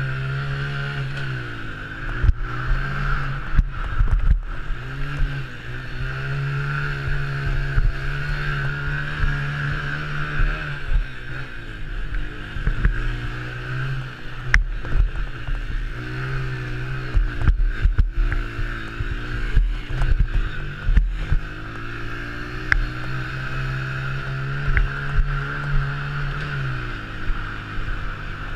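Honda TRX90 mini quad's single-cylinder four-stroke engine racing, its pitch rising and falling with the throttle through the corners and holding steady on the straights, with frequent knocks and thuds from the rough track and wind buffeting the helmet camera.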